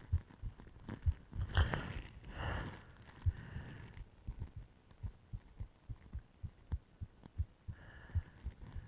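A human heartbeat heard through a stethoscope: a steady run of quick, low lub-dub thumps. A few rushing, hissing noises come over it early on and again near the end.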